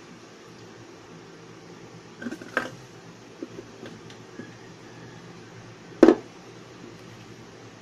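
A few scattered knocks and clicks over a steady low room hum, the loudest a single knock about six seconds in.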